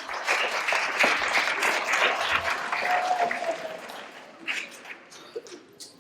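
An audience of schoolchildren and staff applauding, many hands clapping at once; the applause is loudest in the first three seconds and dies away after about four seconds.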